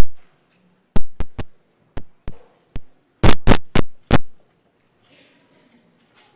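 Sharp knocks and clinks of Communion vessels being handled and set down on the altar while they are purified after Communion, about a dozen in irregular quick succession, the loudest cluster a little past three seconds in, then they stop.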